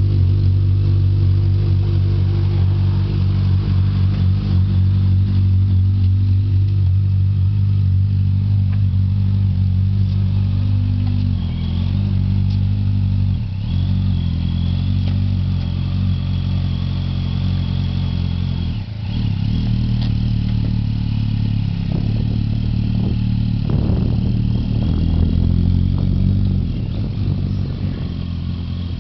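Kawasaki motorcycle engine running steadily, its pitch shifting a little, with two brief dips, about halfway through and again about two-thirds of the way through.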